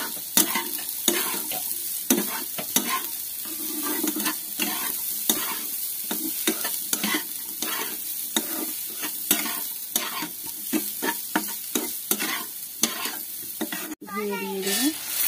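A metal spatula stirs and scrapes grated beetroot and carrot frying in oil in a non-stick pan, in repeated short strokes over a steady sizzle.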